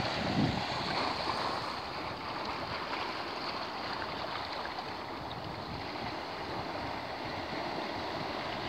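Shallow seawater washing over sand and rock, a steady hiss of small waves, with wind buffeting the microphone in the first half second.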